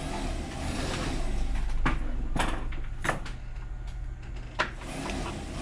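Sheets of paper being handled and folded by hand on a table: soft sliding and rustling with a few sharp clicks, over a steady low hum.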